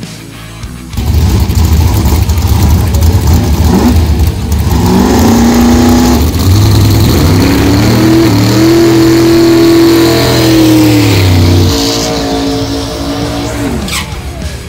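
Drag race cars doing burnouts: engines revved hard with tyres spinning, the engine note climbing about five seconds in, held high for a few seconds, then dropping off near the end.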